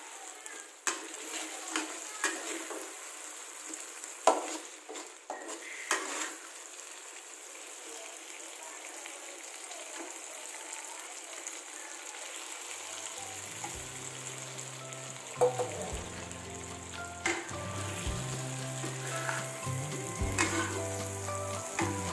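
Green chili sambal sizzling in a wok while a metal ladle stirs and scrapes through it, with a few sharp knocks of the ladle against the pan. Fried quail eggs are stirred into the sizzling sauce, and low background music comes in a little past halfway.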